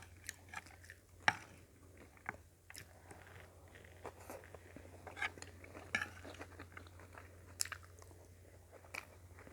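Close-up eating sounds: chewing with scattered soft crunches, mouth clicks and smacks, over a faint steady low hum.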